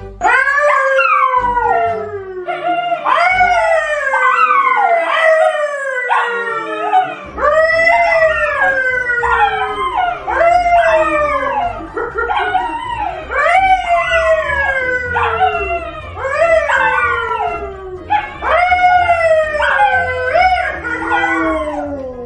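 A man and two dogs, a yellow Labrador retriever and a brown poodle, howling together: a long string of overlapping howls, each sliding down in pitch.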